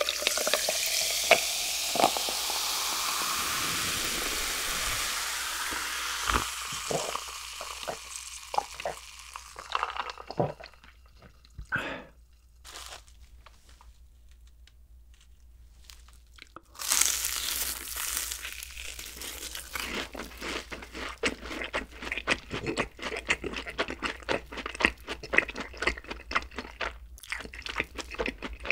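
Cola poured from a plastic bottle into a glass jar of ice, fizzing loudly and fading over several seconds, with clinks of ice. After a quieter stretch, a loud crisp bite into a fried cheese ball and then steady crunchy chewing.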